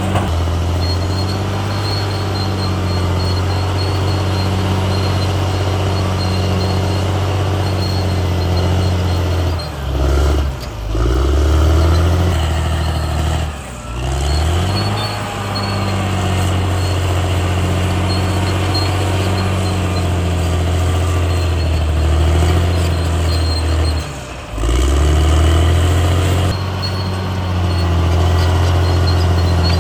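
CAT D6R XL bulldozer's diesel engine running steadily under load. The engine note drops sharply and picks back up three times: about a third of the way in, again a few seconds later, and once more near the last quarter.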